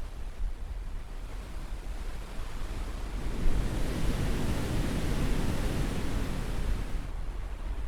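Caribbean surf washing onto a beach: a wave swells up about three seconds in and ebbs away near the end, over a steady low rumble.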